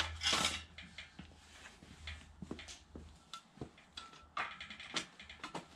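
Steel engine crane being wheeled and shifted about on brick paving: scattered knocks and clicks from its casters and frame, with a short burst of noise at the start and a few brief squeaks.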